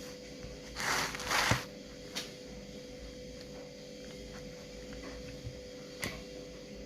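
Hands squishing and working a jiggly toy slime: two short squishes about a second in, then a few faint clicks, over a steady faint hum.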